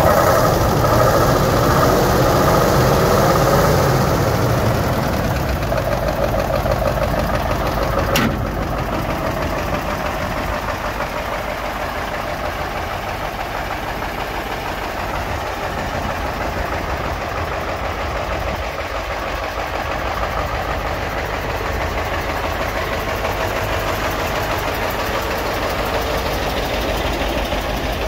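Mercedes-Benz 2626 truck's diesel engine idling steadily, loudest at first with the microphone close to the engine, then a little quieter and even. A single sharp click about eight seconds in.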